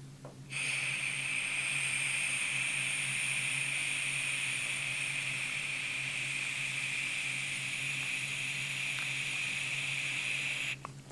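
Helium hissing steadily out of a party voice-changer gas can while its nozzle is held down, starting sharply about half a second in and cutting off near the end.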